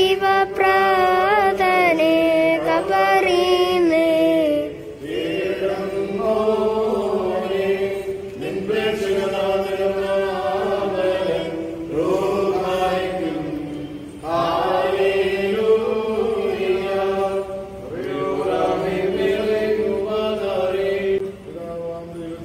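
Liturgical prayer chanted in a sung voice, in held, gliding phrases of about three to four seconds each with short pauses for breath between them.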